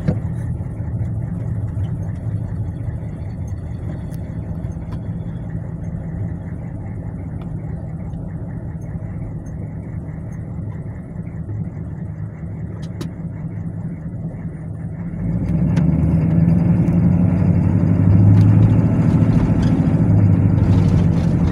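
Box truck's engine and road noise heard from inside the cab while driving slowly along a town street. A steady low rumble that grows louder about fifteen seconds in.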